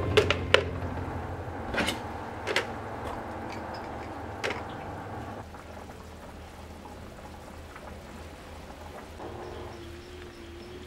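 Plastic kitchenware set down on a plastic dish-drainer tray: about five sharp clacks in the first few seconds, then quieter handling.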